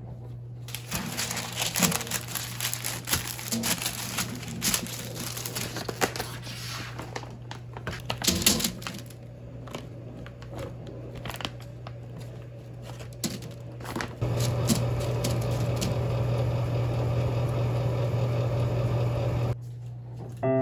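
Crinkling and rustling, as of plastic or packaging being handled, over a steady low hum. About fourteen seconds in, a louder steady rushing noise starts and then cuts off suddenly some five seconds later.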